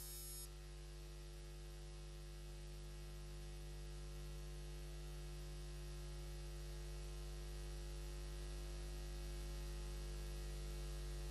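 Steady electrical mains hum with a hiss of background noise, growing slightly louder.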